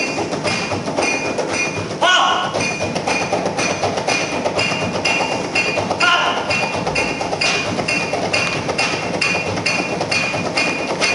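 Music with a steady beat: short, high repeated notes about two a second over a dense backing, with a brighter sweeping sound about two seconds in and again about six seconds in.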